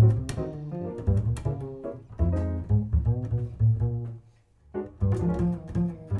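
Upright double bass played pizzicato: a solo line of separate plucked notes that breaks off briefly about four seconds in, then picks up again.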